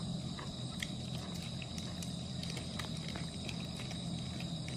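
A man chewing food, with scattered soft mouth clicks, over a steady high-pitched tone and a low hum.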